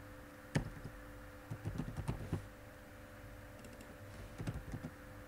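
Computer keyboard keystrokes: a single sharp key strike about half a second in, a quick run of keys around two seconds, and a few lighter taps near the end, over a faint steady hum.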